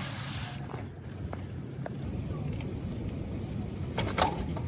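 Street ambience: a low, steady traffic hum with a short burst of hiss at the start and a few faint ticks. A brief voice comes in about four seconds in.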